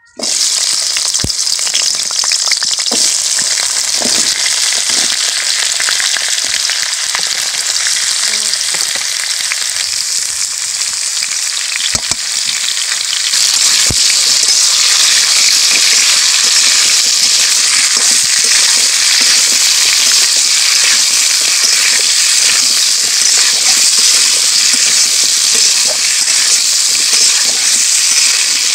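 Raw giant taro (maan kochu) chunks frying in hot oil in a wok. The loud sizzle starts suddenly as the pieces go in and grows louder about halfway through. A metal spatula scrapes and knocks against the pan now and then as the pieces are stirred.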